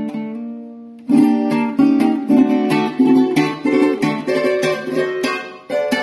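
Venezuelan cuatro with an Engelmann spruce top and teak body, played by hand. A chord rings and fades, then about a second in the player breaks into strummed chords in a steady rhythm, with sharp stroke accents.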